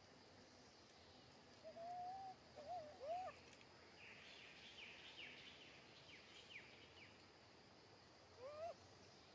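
Faint animal calls: a few short whistled calls that rise and fall, about two and three seconds in and again near the end, with a run of quick, high, falling chirps in between.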